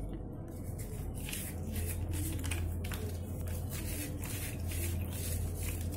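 Dry, gritty sand-and-cement being crumbled between fingers into a plastic bowl of water: a dense, irregular run of crunchy crackles with small wet squishes. A steady low hum runs underneath.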